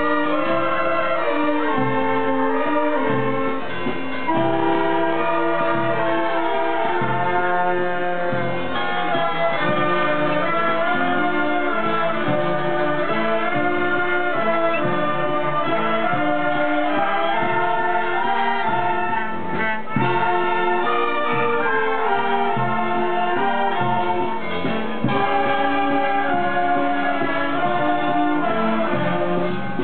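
Wind band playing a tune together: flutes and clarinets carrying the melody over saxophones and brass.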